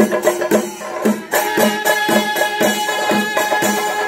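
Traditional temple drum music with a steady beat of about two strokes a second. About a second in, a wind instrument joins, holding a long high note.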